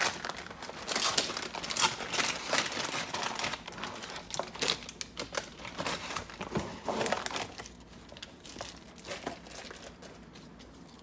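Plastic packets of foam modelling clay crinkling and rustling as they are handled and pushed into a wooden crate, in irregular bursts that are busiest over the first several seconds and die down near the end.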